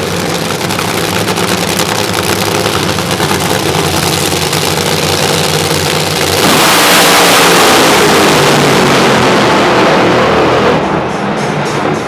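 Drag racing car engines running at the start line, then a much louder burst of throttle lasting about four seconds. It starts about six and a half seconds in and drops off sharply near eleven seconds.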